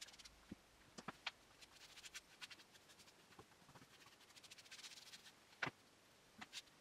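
Faint handling sounds from a small tub and hands working on the wooden shelf: a few light clicks and knocks, and a brief soft rubbing sound about five seconds in.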